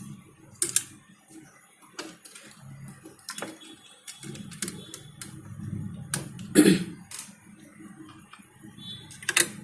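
Scattered sharp clicks and knocks of things being handled on a workbench, several of them a second or two apart and loudest in the second half, over a faint low hum.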